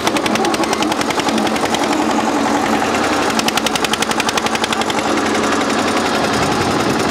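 Tractor diesel engines of an Eicher 242 and a Mahindra 275 DI running flat out under load as they pull against each other on a chain, with a fast, even exhaust chatter of about a dozen beats a second.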